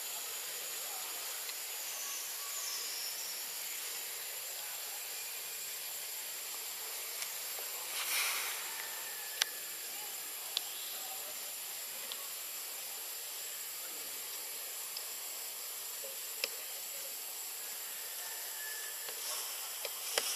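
Steady high-pitched hiss of forest ambience, broken by a few sharp clicks and a brief louder rustling swell about eight seconds in.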